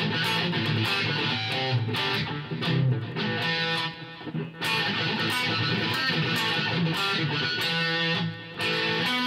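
Electric guitar playing a shuffle riff in A, worked with pull-offs on the A string, with two short breaks, one about halfway and one near the end.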